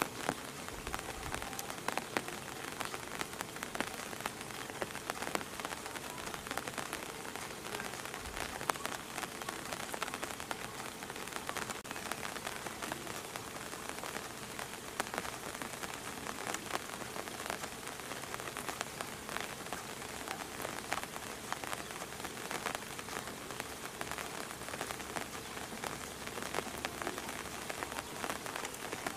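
Steady rain falling, a constant hiss of many small drop hits.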